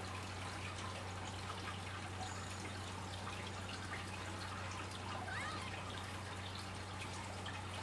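Steady hiss and low hum of a running room heater, with a faint short squeak about five seconds in.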